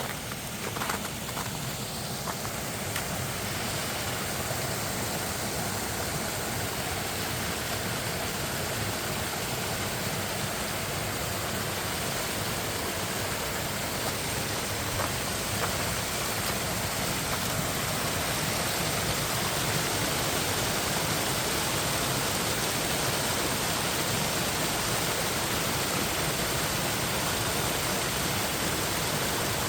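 Mountain stream rushing and splashing over rocks, a steady rush of water that grows slightly louder toward the end.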